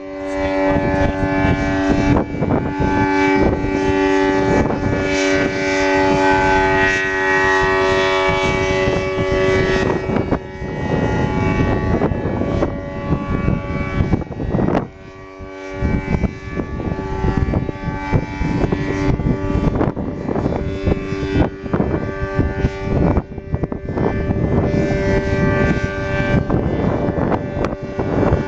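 ACA Allertor 125 electronic outdoor warning siren sounding a steady, unwavering tone, swelling and fading as its rotating horn array turns toward and away from the listener. Wind buffets the microphone throughout.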